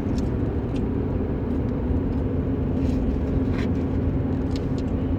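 Steady low rumble of a motor vehicle with a faint constant hum, without change.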